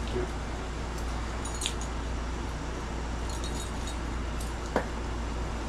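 Steady hum and hiss of a running portable air conditioner, with a few light clinks about a second and a half in and a sharper click near the end.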